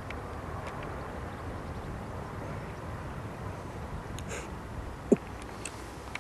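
Steady low rumble of outdoor background noise, with a few faint clicks and one short, sharp sound about five seconds in.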